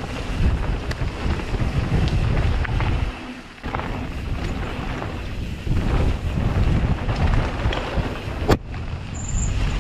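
Wind rumbling on the microphone of a mountain bike riding a downhill trail, with the tyres rolling over dirt and scattered rattles and clicks from the bike. The rumble drops out briefly about three seconds in. A sharp snap near the end is the loudest single sound.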